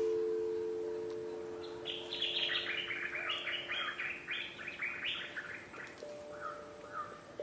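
A bird singing a fast run of short repeated notes, about five a second, for three to four seconds.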